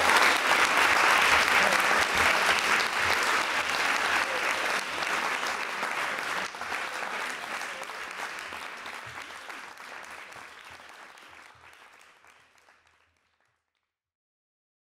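Audience applauding, fading out steadily to silence about thirteen seconds in.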